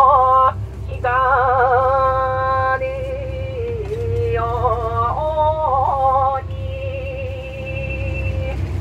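A woman's unaccompanied singing voice in a Japanese boat-song style, holding long notes with a wavering vibrato and quick ornamental turns between them, over a steady low rumble.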